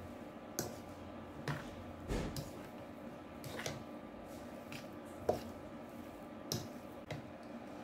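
Metal fork mixing a soft mash of grated potato, tomato and green onion in a bowl: quiet squishing with scattered clicks and scrapes of the fork against the bowl, the sharpest about five seconds in.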